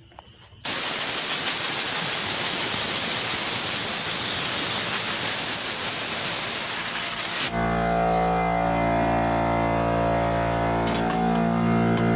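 A steady hissing blast of compressed air blowing debris off the duster liner, squeegee and cleaning brush of a Kegel lane-oiling machine. The air cuts off suddenly about seven and a half seconds in, and steady music with long held tones takes over.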